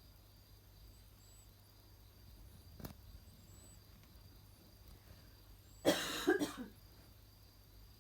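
A sleeping pet with chronic rhinitis snoring through its blocked nose: a faint snore about three seconds in, then a loud, broken nasal burst of several pulses about six seconds in.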